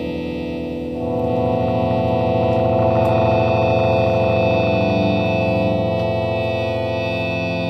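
Electronic drone music: many steady tones held together, swelling about a second in, with a lower note wavering near the middle and again near the end.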